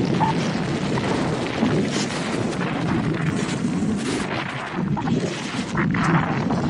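Loud, steady wind buffeting on an action camera's microphone during a run through powder snow, with the rushing hiss of the snow under the skis.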